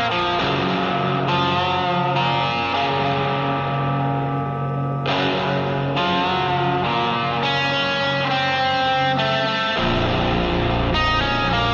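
Rock music with distorted electric guitar, its chords changing every second or so; the bass gets heavier near the end.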